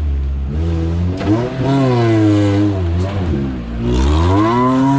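Modified off-road 4x4's engine revving hard under load, its pitch rising and falling several times as the throttle is worked.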